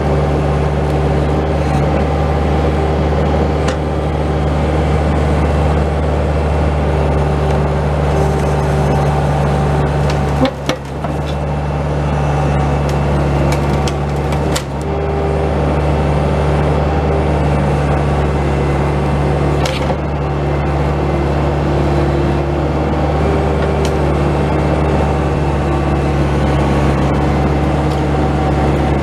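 Bobcat S185 skid steer's four-cylinder diesel engine running steadily under work, with two brief knocks, about a third and about halfway through.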